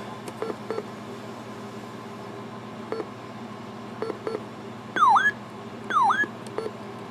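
Electronic beeps: scattered short clicks and beeps, then two loud swooping chirps about a second apart, each dipping in pitch and rising again, over a steady electronic hum.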